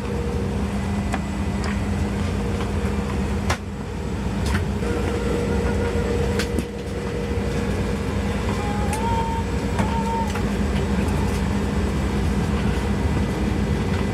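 Airliner cabin noise in flight: a steady, loud rumble of jet engines and air with a constant hum, broken by two short dips about a third and half way through.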